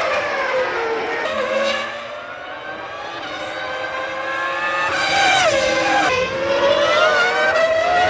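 Formula One car's 3.0-litre V10 engine at racing revs, its pitch climbing under acceleration. About five seconds in it falls steeply, as on braking and downshifting, then climbs again.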